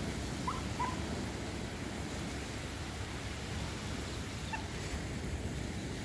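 Steady rush of wind and surf, with a few faint short high calls about half a second in, near one second, and again past four seconds.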